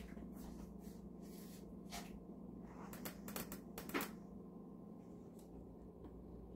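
Quiet room with a steady low hum, and a few faint clicks and taps around the middle.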